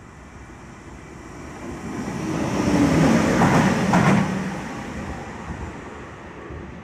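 E186 (Bombardier TRAXX) electric locomotive running light, passing at speed along the platform. It swells up, peaks with a couple of sharp wheel knocks about three and a half and four seconds in, and fades away.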